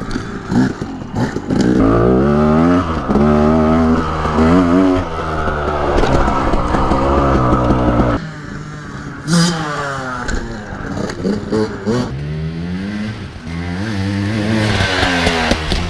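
Dirt bike engine revving hard and climbing in pitch through several gear changes, close to the microphone. It cuts back sharply about eight seconds in, followed by more rising and falling revs.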